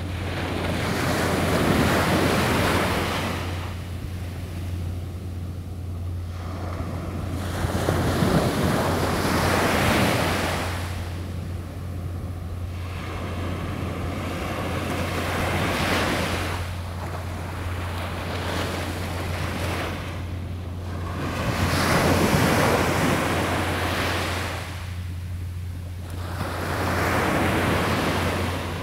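Ocean surf breaking and washing up the shore, swelling and fading about every six seconds, over a steady low rumble of wind on the microphone.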